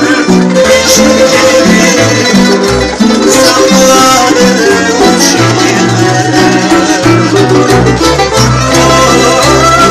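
Tamburica ensemble playing a lively instrumental passage of a Serbian song: plucked tremolo melody over strummed chords, with the bass line coming in strongly near the end.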